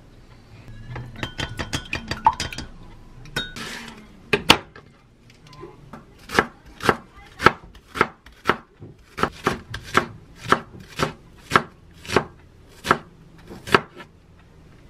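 Chef's knife slicing a Korean leek (daepa) on a wooden cutting board, with sharp, even chopping strokes about two a second through the second half. Before that, about a second in, comes a quick run of light clinks.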